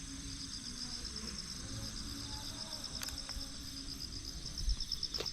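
Insects chirping, a steady high-pitched trill of rapid, even pulses, over a low background rumble with a couple of faint clicks.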